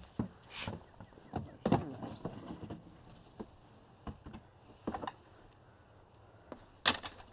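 A string of irregular knocks, bumps and short scrapes, as of things being handled and moved by hand. The sharpest knocks come near two seconds in and near the end.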